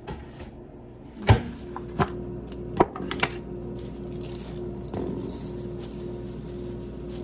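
Kitchen containers being handled: four sharp knocks and clacks over about two seconds as a food canister is picked up and things are set down, the first the loudest. A steady low hum runs underneath from the first knock on.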